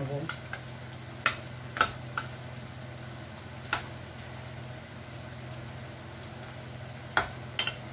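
Spatula knocking and scraping against a non-stick pan while koftas are turned over in curry, as a handful of sharp, irregular taps with a quiet stretch in the middle. Under it the curry sizzles gently over a steady low hum.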